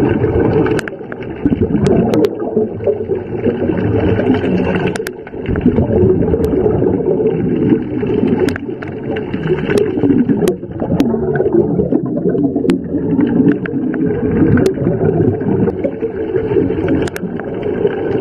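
Underwater sound of a scuba diver breathing through a regulator: exhaled bubbles in loud surges a few seconds apart, with scattered sharp clicks.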